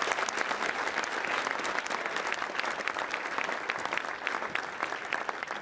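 Audience applauding: many people clapping together, a dense and steady sound that eases slightly near the end.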